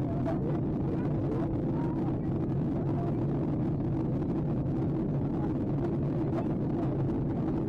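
Steady drone of an airliner's jet engines heard inside the passenger cabin, an even low rumble with a hum that does not change.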